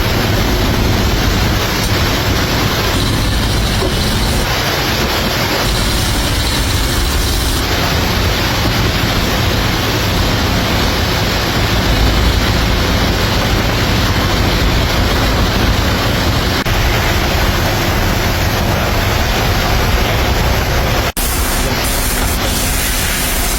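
A steady, loud rushing noise with no clear rhythm or pitch, briefly cut off about 21 seconds in.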